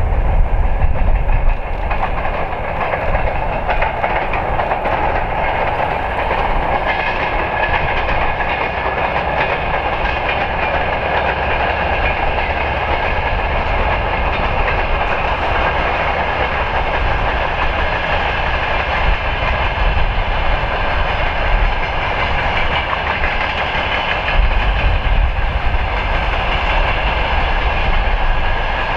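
A long freight train of open gondola wagons rolling steadily past, its wheels rumbling and clattering on the rails.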